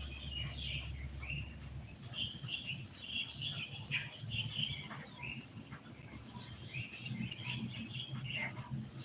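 An insect trills in long, steady, high notes of about two seconds each with short breaks between them, while birds chirp and twitter in the background.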